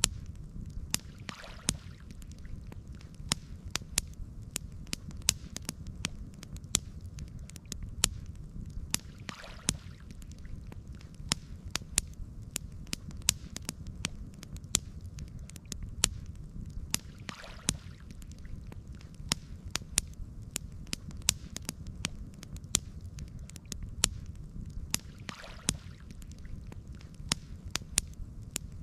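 Campfire crackling, with frequent sharp pops and snaps over a steady low rumble. A faint soft swish recurs about every eight seconds.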